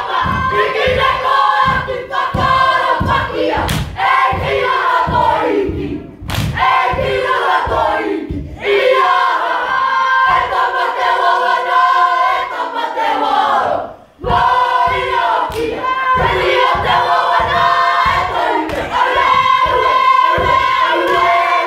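A group haka: many young voices chanting and shouting in unison, over a steady beat of about two to three a second from bare feet stamping on a wooden stage and hands slapping thighs and chest. The chant breaks off briefly a few times and stops abruptly at the end.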